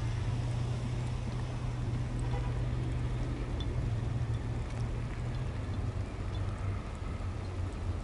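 A car engine running steadily, a low even hum, with outdoor street noise.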